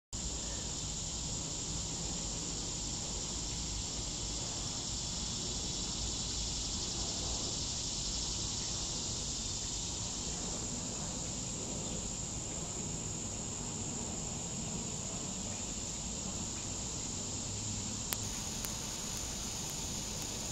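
Steady, high-pitched insect chorus that runs on unbroken, with a single faint click near the end.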